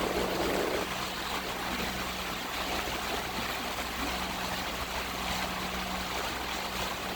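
Rushing water flowing steadily, with a steady low hum underneath.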